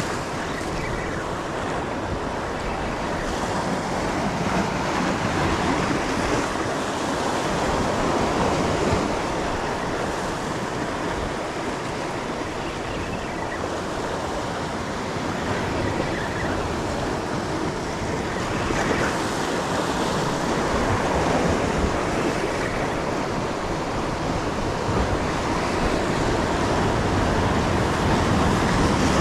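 Ocean surf washing against the shoreline, a steady rush that swells and eases as the waves come in.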